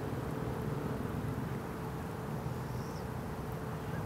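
Steady low mechanical hum with a thin constant tone running through it; a faint short high chirp about three seconds in.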